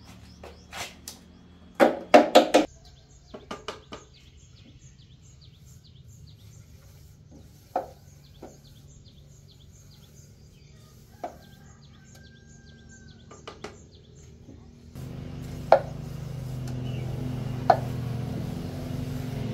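Scattered knocks and clatter of tools against steel concrete moulds as they are cleaned and oiled, loudest in a quick cluster about two seconds in, with birds chirping faintly. A few seconds before the end a steady low motor hum sets in and grows.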